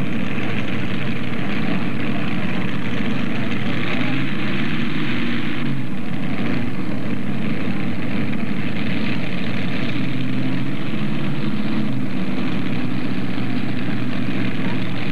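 Modified pulling tractor's Allison V12 aircraft engines idling steadily at the starting line, hooked to the sled, before the pull.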